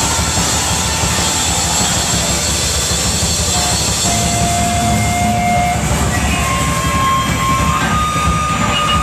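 Loud, distorted live rock band wash with electric guitar feedback: a held whine that steps up in pitch a few times as the guitar is pushed toward its amplifier.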